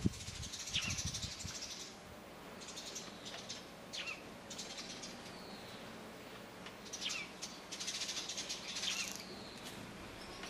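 Sparrows chirping now and then, short falling chirps, four or so, with a few low knocks in the first second or two.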